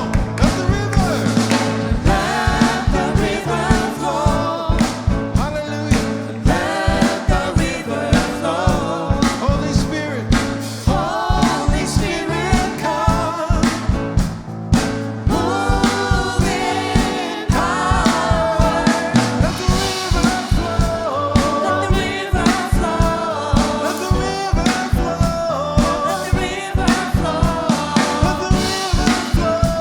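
Live gospel worship band music: singing, with choir voices, over a steady drum kit beat.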